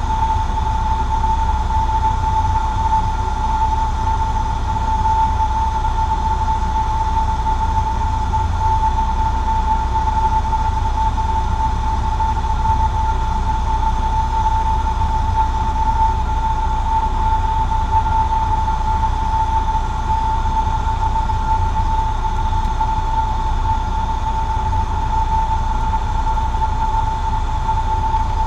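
Cessna 150J's Continental O-200 four-cylinder engine and propeller running steadily, heard inside the cabin as a constant drone. A steady high-pitched tone runs through it.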